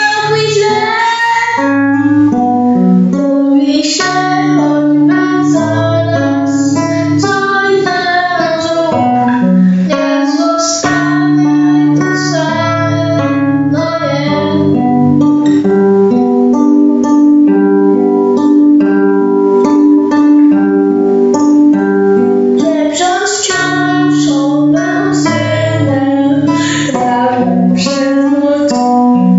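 A boy singing while strumming an acoustic guitar.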